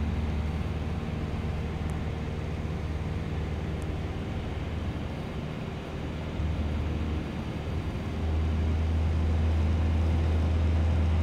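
Steady drone of a light single-engine airplane's engine and propeller, heard inside the cockpit, getting louder about eight seconds in.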